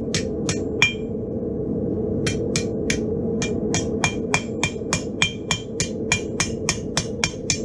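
Hand hammer striking hot steel on a 65 lb Vevor anvil, about three blows a second, forging the leaf's stem thinner; some blows ring. Three blows, a pause of about a second and a half, then a steady run of blows, over a steady background rush.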